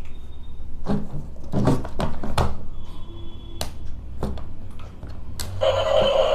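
Clicks and knocks of a plastic battery-operated toy car being picked up and handled. Near the end a steady buzzing sound from the switched-on toy starts up.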